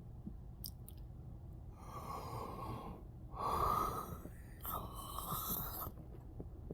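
A man breathing heavily between phrases: three long, noisy breaths about a second each, the middle one loudest.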